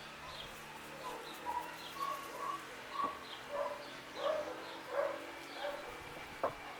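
Animal calls: a run of short calls, about two a second, with small birds chirping higher up. A single sharp click comes near the end.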